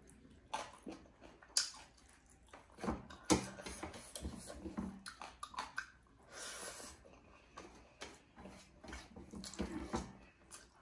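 Wet chewing and smacking mouth sounds of someone eating rice and buffalo meat by hand, with irregular sharp clicks and smacks; fingers working the rice on a steel plate near the end.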